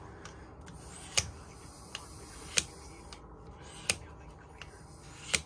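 Spyderco Dragonfly 2 blade being stroked along a handheld sharpener's rod to put a new edge on the reprofiled tip: four sharp clicks about 1.3 seconds apart over a faint hiss.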